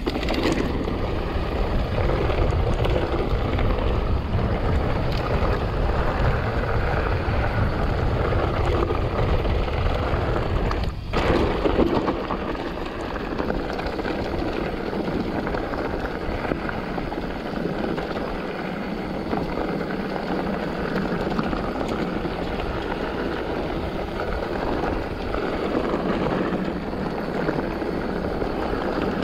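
A 2021 Polygon Siskiu N7 mountain bike rolling along a dirt trail, with wind rumbling on the camera microphone over the rattle of tyres and bike. There is a brief loud jolt about eleven seconds in, after which the low wind rumble lessens.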